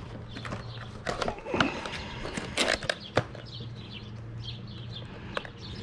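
Gel coat repair kit's containers and packaging being handled and turned over: scattered clicks, taps and rustles, mostly in the first three seconds. A steady low hum runs underneath, and faint bird chirps come in the second half.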